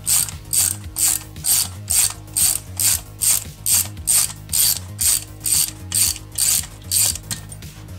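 Ratchet wrench clicking in quick, even swings, about two a second, as it turns the bolt of a valve spring compressor clamped on a Ford Coyote V8 cylinder head; it stops shortly before the end.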